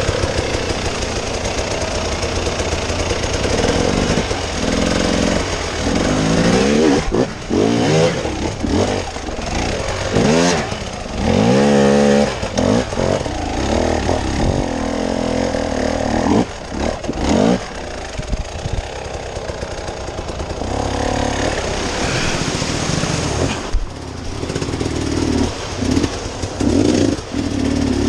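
Off-road vehicle engine running under load and revving again and again, its pitch climbing and dropping with each blip of the throttle over a steady low rumble.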